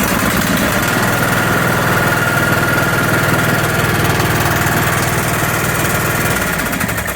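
Ariens 20-horsepower lawn tractor engine running steadily, having started once the compression lock was cleared. It begins winding down near the end as it is shut off.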